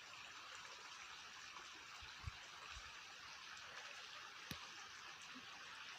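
Near silence: a steady faint hiss of room tone, with one soft low thump about two seconds in and a small click about four and a half seconds in.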